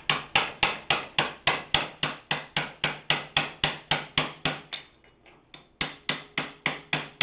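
Hammer striking an open-end wrench in quick, even blows, about four a second, to tighten the flywheel nut on a small engine. The blows pause for about a second near five seconds in, then resume.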